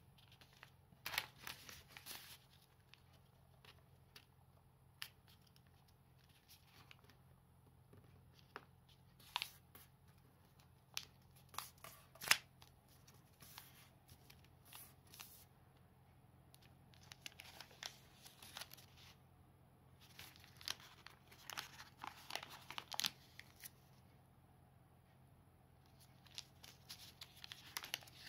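A sheet of origami paper being folded and creased by hand: faint, scattered rustling and crinkling with crisp taps and scrapes as fingers press the folds flat. The sharpest tap comes about twelve seconds in.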